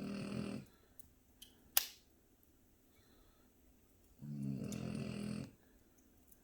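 French bulldog snoring in her sleep: one snore ends about half a second in and another lasts over a second about four seconds in, with quiet breathing between. A single sharp crack sounds about two seconds in.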